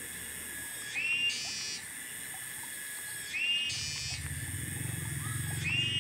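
A wild animal call repeating about every two and a half seconds, three times: a short rising note followed by a buzzy rasp, over a steady high whine. A low pulsing hum comes in a little past the middle.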